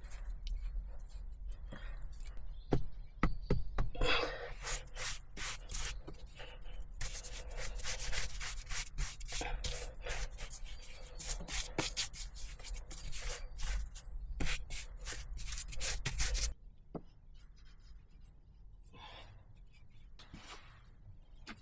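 Irregular scraping and rubbing strokes of hand work on wood, going on busily for about sixteen seconds and then cutting off abruptly. After that only a few faint scrapes are heard.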